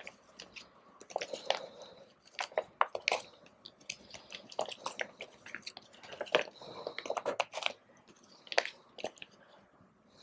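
Clear plastic binder pages rustling and crinkling as they are handled, with irregular small clicks and crackles.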